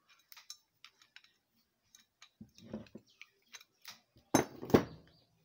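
Light metallic clicks and clinks of adjustable wrenches handled on a brass ball valve while it is being unscrewed for disassembly, with two louder knocks near the end, half a second apart.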